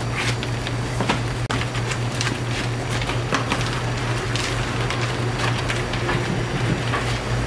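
A steady low machine hum with irregular clicks and light knocks over it.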